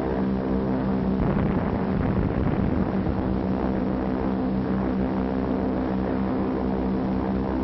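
Steady drone of propeller aircraft engines, as of bombers in flight, on an old film soundtrack that cuts off the high end. It roughens for a moment about a second in.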